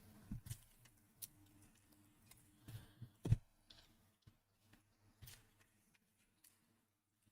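Faint, scattered clicks and taps of trading cards being handled and sorted by hand. The loudest is a sharp tap about three seconds in.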